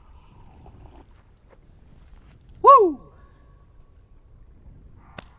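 One short, loud animal call about halfway through, its pitch rising and then falling, over a faint low background rumble. A single sharp click comes near the end.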